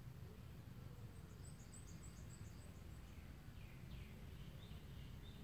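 Faint outdoor ambience over a low steady rumble: a bird gives a quick run of high chirps about a second in, then two falling calls and a few more short notes near the end, with a faint insect trill.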